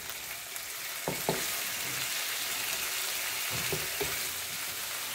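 Bone-in chicken pieces frying in hot oil in a non-stick wok, sizzling steadily, while a wooden spatula stirs them, with a few short knocks of the spatula against the pan.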